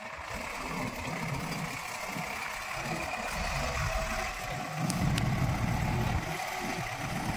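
JCB 3DX backhoe loader's diesel engine running as the machine reverses with its loader bucket raised, louder for a second or so about five seconds in.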